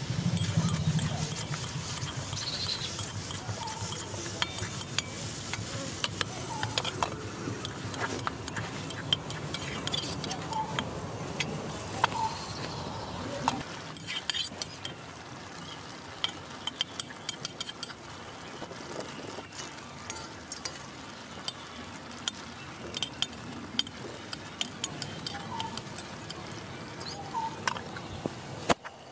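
A metal spatula scraping and clinking against a metal pan as pieces of sponge gourd and potato are stirred in spiced oil, over a steady frying sizzle. The clinks come irregularly and often, with the sizzle a little fuller in the first half.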